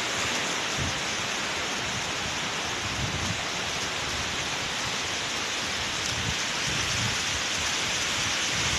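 Waterfall: a steady, even rush of falling water, with a few soft low thumps underneath.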